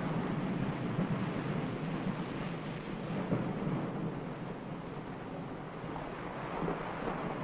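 Steady low rumbling, rushing noise with no distinct events or pitch.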